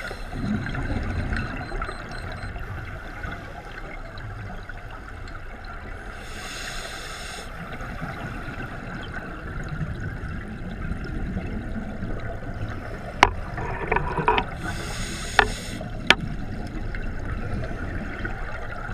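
Scuba breathing underwater through a regulator, heard from inside a camera housing: a steady bubbling rumble of exhaled air, with two brief hisses about six and fifteen seconds in. A few sharp clicks come between about thirteen and sixteen seconds.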